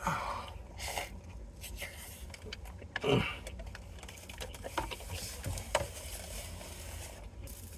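Eating noises: irregular small clicks and crunches of chewing and mouth sounds, over a low steady hum.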